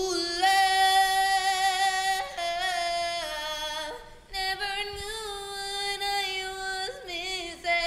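A solo voice singing without accompaniment: long held, wordless notes with vibrato, joined by short runs.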